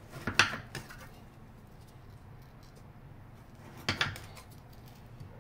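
Chef's knife cutting through bars of palha italiana, chocolate fudge set with crisp biscuit, on a granite countertop: two short bursts of sharp clicks and knocks as the blade goes through and meets the stone, about half a second in and again about four seconds in.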